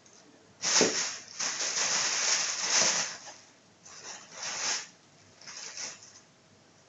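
Plastic bag rustling and crinkling as a kitten plays with it. It comes in about four bursts, the longest lasting nearly two seconds.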